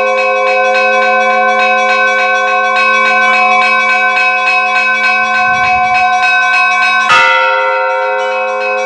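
Church bells ringing: quick, repeated strikes several times a second over the long ring of the bells, with one louder, sharper stroke about seven seconds in.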